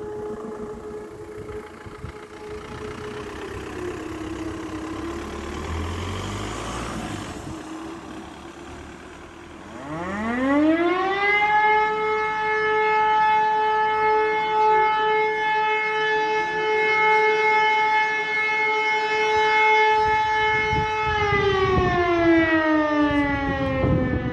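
Fire brigade alarm siren winding up about ten seconds in, holding one steady wailing tone for about eleven seconds, then starting to wind down near the end: a test alarm. Before it, a fainter siren tone fades and drops in pitch.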